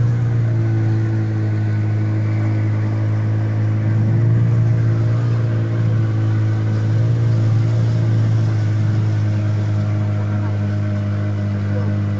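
Outboard motor running at a steady cruising speed, driving an inflatable rescue boat along a river: a steady engine drone that wavers slightly in pitch a few times.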